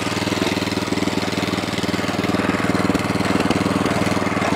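The engine of a PATRIOT Ural walk-behind tractor running steadily at an even speed. The engine is warm and runs without the choke.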